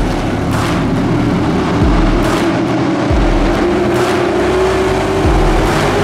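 Stock cars' engines running in a dirt-track race. Under them, a music track's deep bass beat thumps at an even pace.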